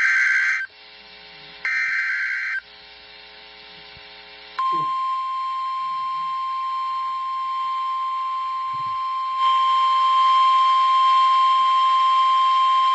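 NOAA Weather Radio SAME alert header: two short bursts of harsh digital data screech about a second apart. After a pause, the steady 1050 Hz warning alarm tone starts about four and a half seconds in and holds, growing louder about halfway through. This is the alert signalling a severe thunderstorm warning.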